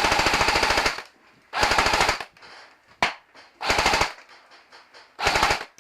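Airsoft gun firing full-auto in four short bursts of rapid clicking shots, the first lasting about a second, with a single shot between the second and third bursts.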